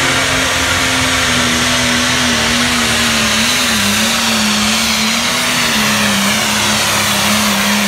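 Turbocharged diesel engine of a light pro stock pulling tractor running at full throttle under load as it drags the sled down the track. The engine note holds steady and dips slightly in pitch about halfway through.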